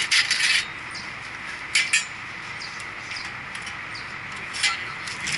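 A few short, sharp metallic clinks and scrapes, separated by pauses, as a heavy electric motor and the metal around it are handled.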